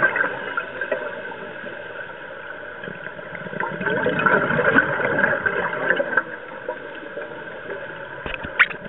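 Underwater sound of a scuba diver's regulator breathing: a bubbling exhalation swell about four to six seconds in, with quieter stretches between breaths, over a steady hum carried through the water.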